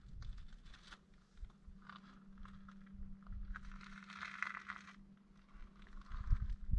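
Faint rustling and crunching, loudest about halfway through, with low irregular rumbles near the end and a faint steady hum underneath.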